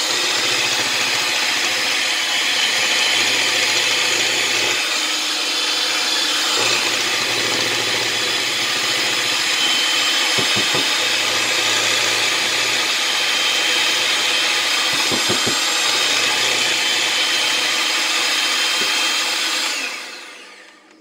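Electric hand mixer running steadily, its beaters whirring through cream cheese and sweetened condensed milk batter in a glass bowl. It is switched off near the end and winds down.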